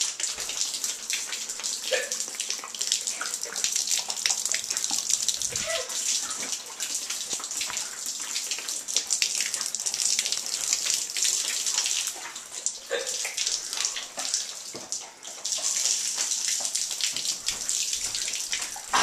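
Liquid splashing steadily onto a wooden floor: a continuous hissing spatter with many small splashes.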